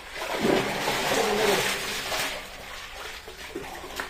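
Muddy water splashing and sloshing as a wet fishing net is hauled and gathered in shallow water, loudest in the first two seconds. A short low wavering call sounds over it from about half a second to a second and a half in.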